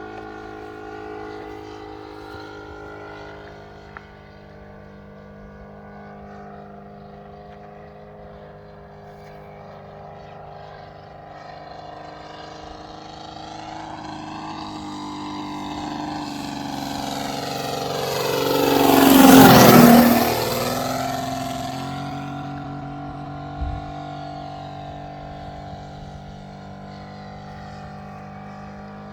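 Model aircraft's Saito FG-60R3 three-cylinder four-stroke radial petrol engine running steadily at low throttle during a low flypast. It grows louder as the plane approaches, is loudest about nineteen seconds in with a sharp drop in pitch as it passes close by, then fades away.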